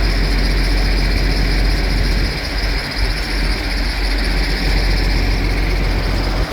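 Tractor and round baler machinery running steadily, heard as a constant engine drone with a heavy low rumble that eases briefly about halfway through.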